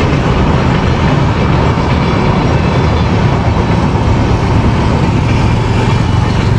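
Steady road and wind noise of a Tata Nexon driving along at speed, a loud even rumble.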